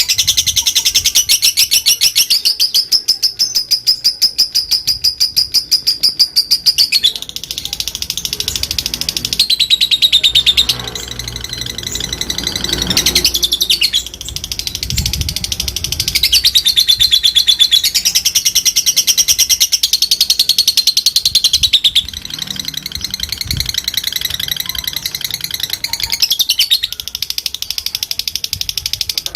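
Lovebird chattering nonstop ('ngekek panjang'): a long, very fast run of high chirps strung together, easing off briefly a few times but never stopping.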